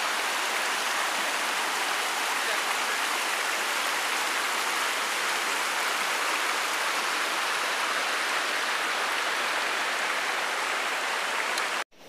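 Forest stream running over rocks into a pool: a steady, even rush of water that cuts off suddenly near the end.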